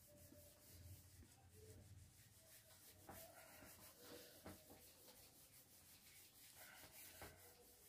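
Faint rubbing of a whiteboard being wiped clean by hand, with a few soft taps.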